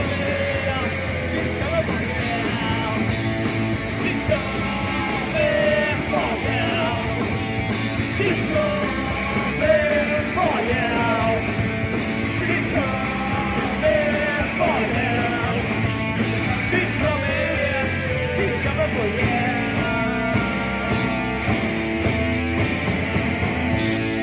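A rock band playing live in a punk style, with a singer yelling and singing over the instruments.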